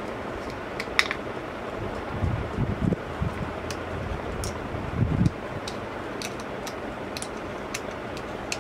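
Scattered small clicks and a few soft bumps of hands handling a micro quadcopter's plastic frame and board while fitting shrink tubing over its flight controller, over a steady fan-like background hiss.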